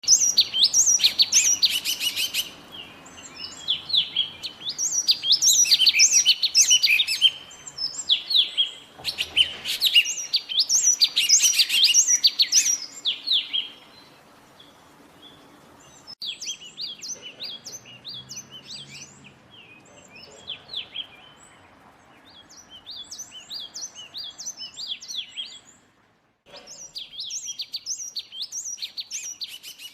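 Small songbird singing: repeated phrases of quick, high chirping notes, loud for roughly the first dozen seconds, then softer. It breaks off briefly near the end, then resumes.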